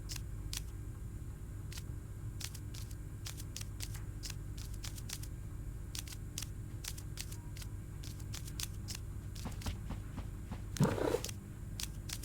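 A cat purring in a steady low rumble, with scattered faint clicks and a short cry about eleven seconds in.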